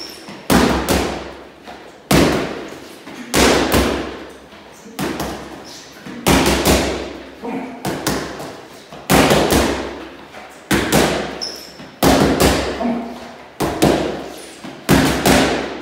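Boxing gloves smacking into focus mitts in quick combinations of two or three punches, a new burst about every one and a half seconds, each strike echoing briefly in the room.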